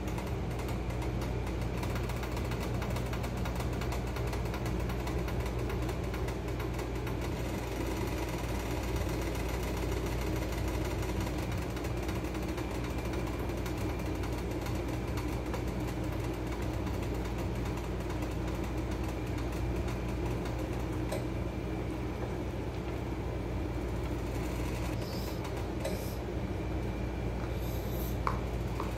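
Pot of water boiling hard on an electric hot plate: a steady bubbling over a constant low hum. There are a few light clinks in the last several seconds as a slotted spoon lifts the potato fingers out.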